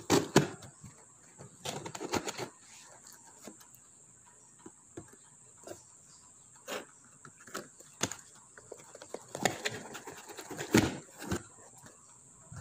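Scissor blade scraping and cutting through packing tape on a cardboard box, with intermittent rustles, scrapes and taps as the cardboard is handled. The louder bursts come about two seconds in and again in the last few seconds.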